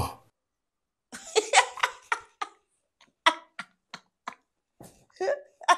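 A person's short, broken non-word vocal sounds in quick bursts, then four sharp clicks about a third of a second apart, then more brief voice sounds near the end.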